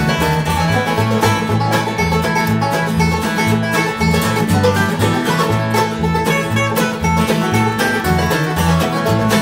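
Acoustic bluegrass band playing: banjo picking out front over acoustic guitars and mandolin, with an upright bass plucking a steady line of low notes underneath.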